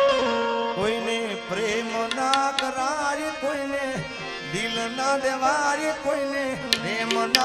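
Live Indian folk music with no words sung: a melody of sliding notes over steady harmonium tones, with sharp hand-drum strokes coming in near the end.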